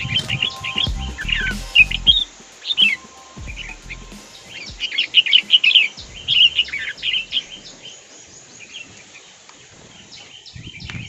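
Bulbuls chirping: dense runs of short, rapid high calls, thickest in the first few seconds and again about halfway through, thinning out near the end. Low thumps come in the first few seconds.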